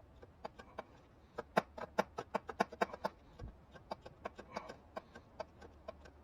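A series of light, sharp clicks from hand tools being worked on the engine while a camshaft position sensor bolt is snugged up, irregular and densest about a second and a half to three seconds in.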